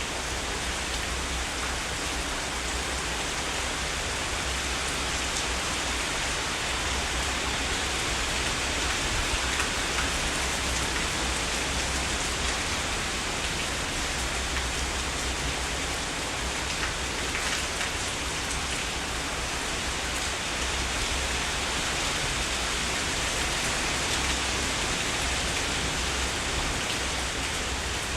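Heavy rain falling steadily: an even hiss with the fine patter of individual drops hitting surfaces.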